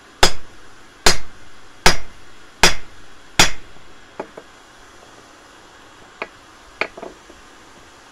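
Hand hammer striking a red-hot steel bar on an anvil, five heavy blows about 0.8 s apart, each with a short ring. A few lighter clinks of metal on the anvil follow near the end.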